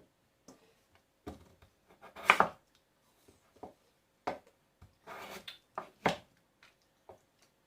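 Irregular taps, knocks and brief scraping rustles of objects being handled, the loudest about two seconds in and again around five to six seconds.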